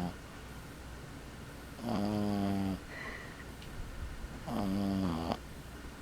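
Boston Terrier puppy snoring in its sleep: two snores of about a second each, some two and a half seconds apart, with the tail of another one right at the start.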